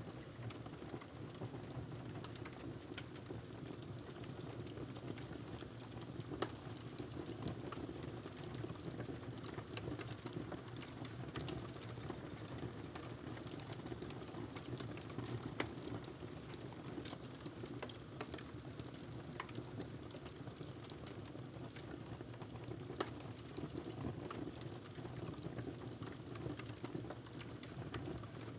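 Wood fire crackling in a fireplace: a steady low rumble of flames with irregular small crackles and a few louder pops.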